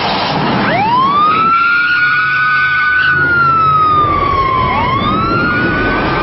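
Police car siren wailing: it climbs steeply about a second in, holds high, sinks slowly, then climbs again near the end.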